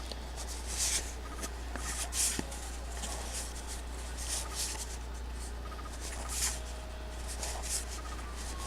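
Trading cards sliding and rubbing against each other as a stack is flipped through by hand, with soft swishes roughly once a second over a steady low hum.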